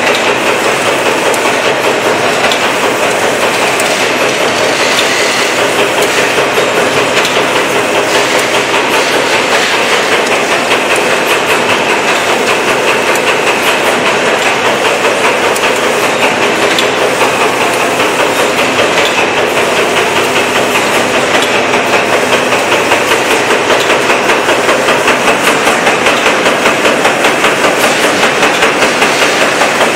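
Automatic wet-wipes folding and packaging line running, with a steady, rhythmic mechanical clatter from its moving parts.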